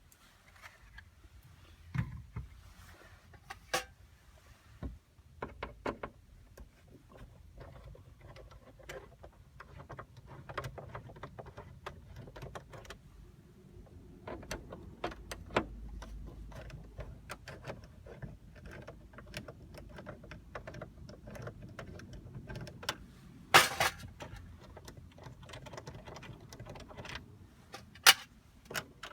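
Irregular small clicks, taps and knocks of car interior trim parts being handled and fitted, with a louder sharp knock about two-thirds of the way through and another near the end.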